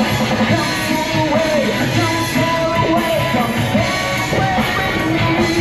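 Rock-style music with singing and a steady beat.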